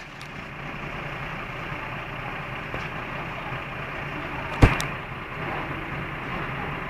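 Steady rumble of an idling vehicle engine, with a single sharp bang a little over halfway through, followed by a smaller knock.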